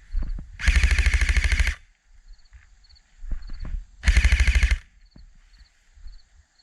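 Airsoft rifle firing on full auto: two long bursts of rapid, evenly spaced shots. The first lasts about a second and the second, a little over three seconds later, is shorter.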